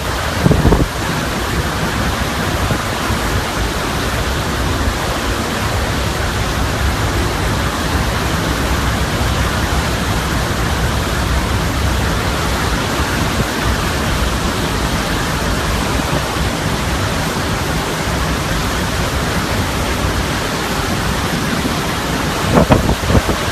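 Hurricane wind and heavy rain making a steady rushing noise, with a few stronger gusts about half a second in and again near the end.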